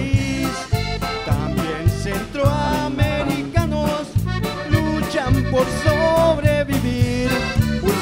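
Live band music led by a button accordion playing the melody over electric bass and a drum kit keeping a steady, upbeat rhythm.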